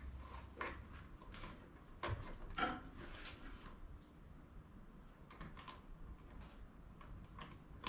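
Light clicks and handling noises of hands pushing wire connectors onto the level-sensor terminals on a black-water holding tank, a few sharper clicks about two to three seconds in.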